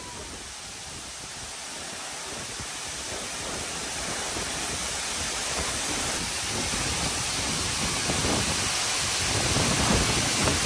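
Waterfall rushing: a steady roar of falling water that grows steadily louder.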